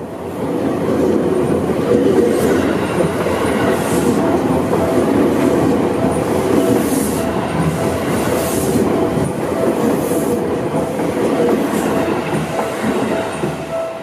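Seibu Ikebukuro Line commuter trains passing close over a level crossing: a steady, loud rumble of wheels on rail with clicking over the rail joints. Throughout, the crossing's warning bell rings in a thin repeating tone, growing plainer near the end.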